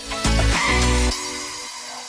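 Background music with guitar, ending about a second in on a final chord that rings and fades out.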